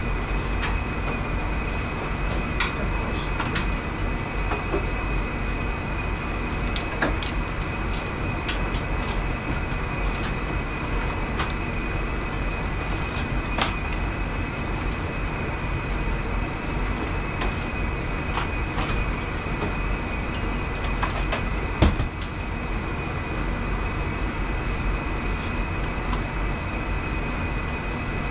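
Steady mechanical hum of commercial kitchen machinery with a thin high whine. Over it come scattered light clicks and clinks of utensils and dishes, and one sharper knock about 22 seconds in.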